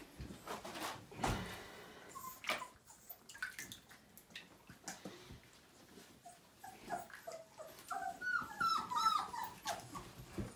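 Five-week-old Siberian husky puppies whimpering in short high cries, coming thickest near the end, amid scattered knocks and rustles of handling.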